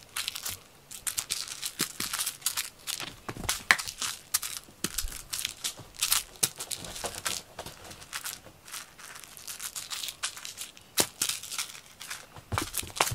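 Rapid, irregular scratching and rustling of a cat teaser toy being swished and dragged over a fleece blanket and floor mats close by.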